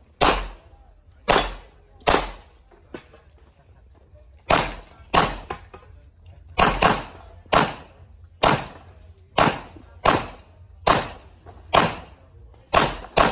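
Handgun shots fired through a practical shooting stage: about fifteen sharp shots, some single and some in quick pairs, separated by short pauses while the shooter moves between targets, each shot ringing out briefly.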